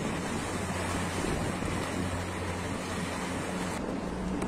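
Small motorboat engine running steadily as the boat moves through floodwater, with wind on the microphone and water rushing past.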